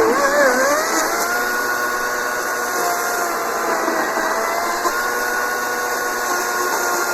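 Kobalt 40V cordless 14-inch electric chainsaw cutting through a poplar trunk: a steady motor whine with chain noise, its pitch dipping and wavering under load in the first second, then holding steady.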